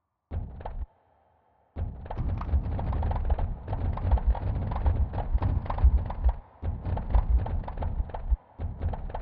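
Earthquake sonification: sped-up seismic waveform samples, one triggered by each recorded tremor, with pitch set by the quake's depth and length and loudness by its magnitude. A short burst comes first, then after a brief gap a dense, near-continuous rattle of overlapping low thumps and clicks with a few short pauses.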